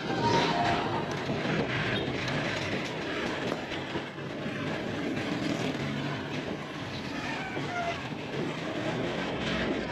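Honda motor scooter being ridden along a street: its small engine running with steady road and wind noise.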